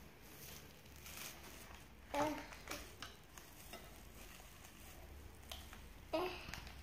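Plastic cling film crinkling and rustling as a child's hands press and wrap a ball of biscuit dough in a bowl. Two brief louder sounds come about two seconds in and near the end.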